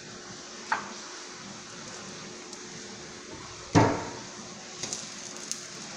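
A metal fork and spatula clicking and knocking against a stainless steel electric skillet as frying egg-coated bread is lifted and poked. There is a sharp click about a second in, one loud knock with a short ring near four seconds, and a few light clicks after, over a steady faint hiss.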